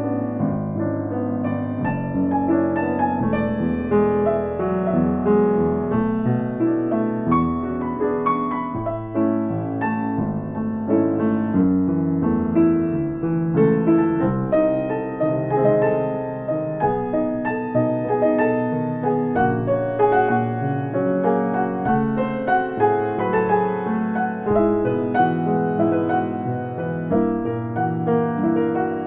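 Piano music playing continuously, many notes sounding at once.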